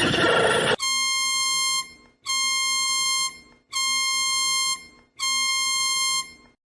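A loud, harsh noise cuts off under a second in. It is followed by an emergency alert alarm tone: four identical buzzy beeps of about a second each, pitched around 1 kHz and evenly spaced, each fading at its end.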